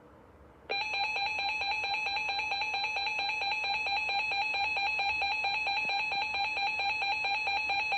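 Weather radio alert tone announcing a severe thunderstorm warning: a loud, steady tone of several pitches that starts abruptly about a second in and pulses rapidly, about nine times a second.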